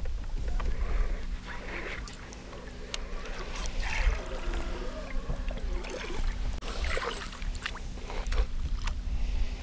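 Bow-mounted electric trolling motor humming steadily, starting just after the beginning, over a constant low rumble of wind on the microphone, with brief splashy hisses from the water.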